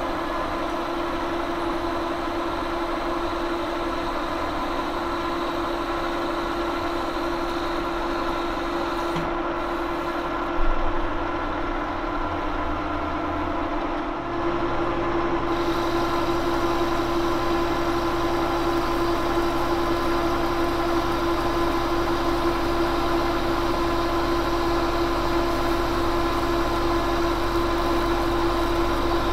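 Monarch engine lathe running under power while a CNMG carbide insert takes a finishing pass on a 1018 cold-rolled steel shaft: a steady machine hum with a constant whine. A short knock comes about ten seconds in, and from about fourteen seconds on the running sound is a little louder, with a low hum added.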